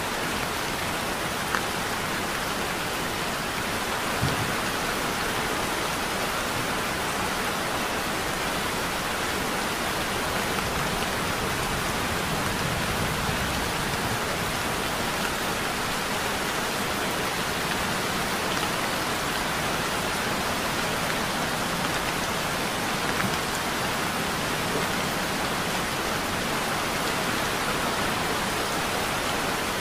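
Heavy rain falling steadily, an even hiss with a few sharper ticks now and then.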